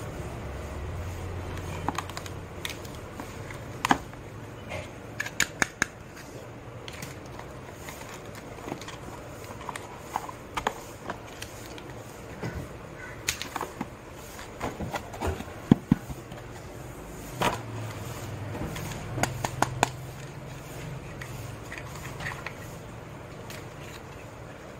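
Small hard-plastic toy kitchen pieces clicking and tapping as they are handled and set down, irregular sharp clicks with a few quick runs of three or four, over a low steady background hum.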